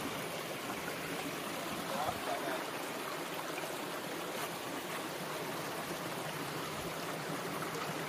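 Shallow rainforest stream running and trickling over mossy boulders and small cascades, a steady rush of water.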